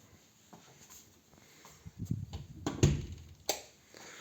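A few knocks and low thumps with scattered clicks, the loudest a low thump about three seconds in, followed shortly by a sharp click.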